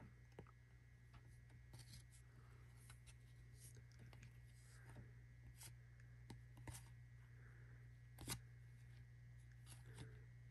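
Faint handling of trading cards: soft scattered clicks and rustles of cards being slid and flipped, with one sharper click a little past eight seconds in, over a steady low hum.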